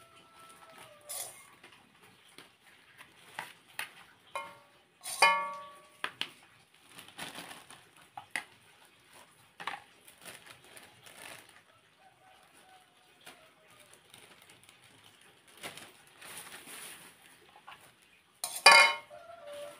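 A metal spoon clinking and scraping against a stainless-steel pot and a plastic bowl, with two louder ringing clinks, one about five seconds in and one near the end. Thin plastic bags crinkle as they are handled.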